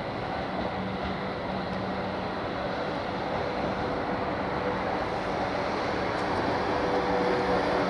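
Class 444 Desiro electric multiple unit at a station platform, its equipment running with a steady hum and a few held tones, getting gradually louder toward the end.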